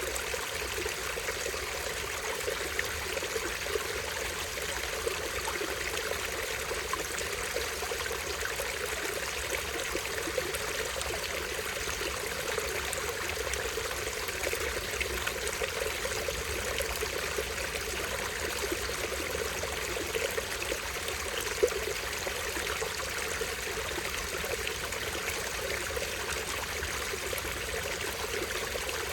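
Small stream of water trickling and splashing over a little waterfall, a steady, even flow with one brief louder tick about two-thirds of the way through.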